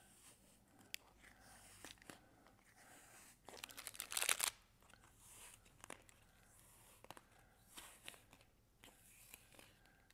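Faint rustling and scattered clicks of objects being handled, with a louder rasping, tearing-like burst lasting about a second, around four seconds in.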